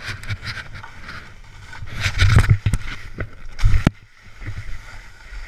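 Burton snowboard sliding and scraping through soft snow, with two louder scraping surges, about two seconds in and again near four seconds.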